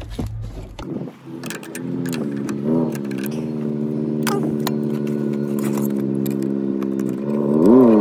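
A motor vehicle engine running steadily, its pitch dipping and rising briefly about three seconds in and again near the end as it gets louder, with light metallic clicks and clinks over it.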